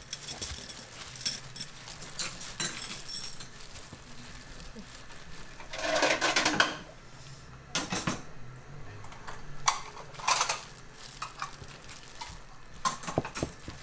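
Kitchen hand-work noises while a large gimbap roll is shaped: plastic food-prep gloves crinkling against the pressed rice, with scattered sharp clinks and knocks of utensils on the counter. A denser stretch of rustling comes about six seconds in, and a few more clicks follow near the end.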